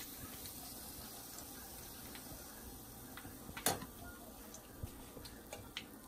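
Light clicks and taps of a metal spoon and wire spider skimmer against the kadai as deep-fried cauliflower florets are lifted out of the hot oil, over a faint steady hiss. One sharper clink comes about three and a half seconds in.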